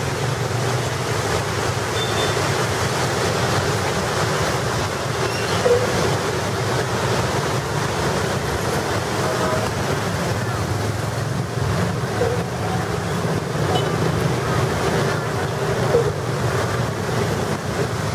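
Steady rain on a wet, jammed road, mixed with the low hum of slow city traffic: cars, buses and motorbikes creeping through the water.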